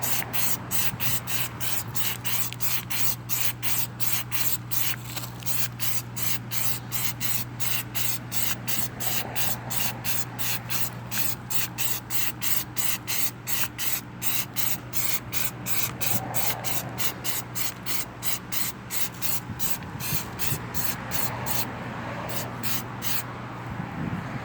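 Black rubberized rock-guard coating being sprayed onto the back of a cab corner in rapid short spurts, about three hisses a second, stopping shortly before the end. A steady low hum runs underneath.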